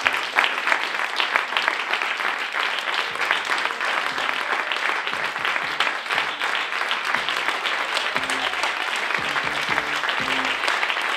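Audience applauding steadily at a curtain call, a dense crackle of many hands clapping. Music with low bass notes comes in under it about three seconds in and becomes more prominent from about eight seconds.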